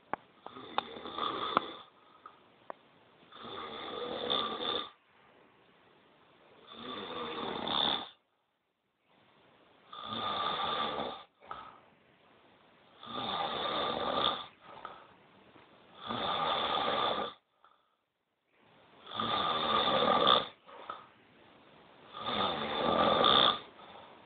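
A man snoring loudly: eight long snores about three seconds apart, each swelling toward its end, with quiet pauses between.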